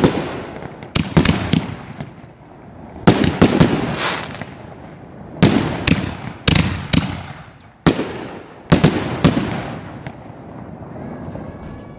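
Fireworks bursting in quick clusters of sharp bangs, each bang trailing off in echo. A new volley comes every couple of seconds, and the bangs die away over the last couple of seconds.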